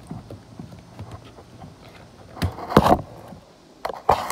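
Handling noise from the recording phone being picked up and moved. A few faint clicks come first, then about halfway through a cluster of loud knocks and rubbing close to the microphone, and another just before the end.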